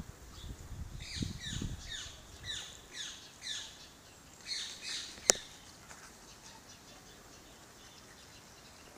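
A bird calling in a quick series of short, downward-sliding chirps, about two a second, which stops about five seconds in. A few low thumps come near the start, and one sharp click a little after five seconds is the loudest sound.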